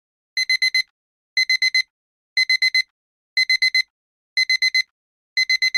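Digital alarm-clock beeping, starting just under half a second in: groups of four quick, high-pitched beeps repeating about once a second, signalling that the countdown timer has reached zero.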